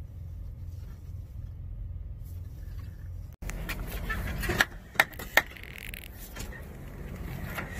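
Semi-truck engine idling, a low steady rumble heard inside the cab. A little over three seconds in the sound cuts off abruptly and comes back, with several sharp knocks and clicks in the next two seconds.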